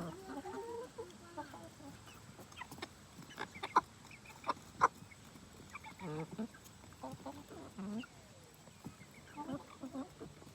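Chickens clucking and murmuring while pecking at a large zucchini, with several sharp peck taps, the loudest a little past three and a half seconds and near five seconds in.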